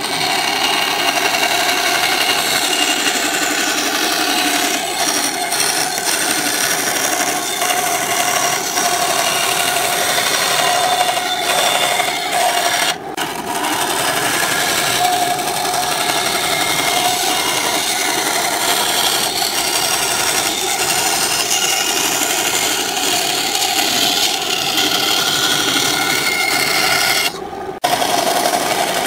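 Benchtop band saw running and cutting curves in a pine board: a steady motor and blade hum with the hiss of the blade through the wood. The sound dips briefly about halfway through and breaks off for a moment near the end.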